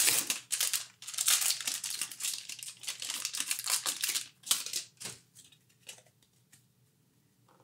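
Foil-lined wrapper of a 1993 Upper Deck football trading-card pack being torn open and crinkled, a dense run of crackling for about three seconds. A few lighter rustles and taps follow as the cards are slid out.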